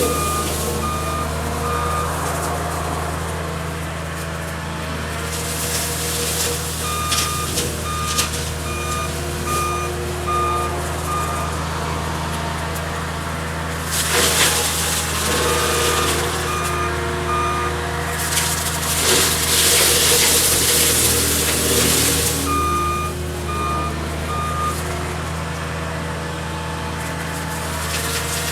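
Cat 279D skid steer's diesel engine running steadily under load while its reversing alarm beeps in several spells as it backs up. Three loud bursts of rushing, hissing noise come and go, the brush cutter head shredding brush.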